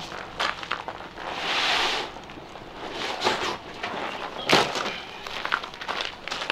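Nylon rustling with clicks and knocks from the straps and buckles as a heavy loaded rucksack, about 30 kilos, is hoisted onto the back. There is a swish of fabric about one and a half seconds in and a sharp knock about four and a half seconds in.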